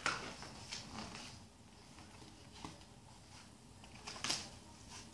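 Soft rustles and light knocks of a hardcover picture book being handled, its pages touched and the book lifted up. The loudest rustle comes about four seconds in.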